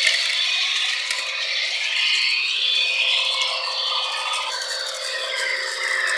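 Model electric train running on its track, the wheels and motor giving a steady mechanical rattle and scrape.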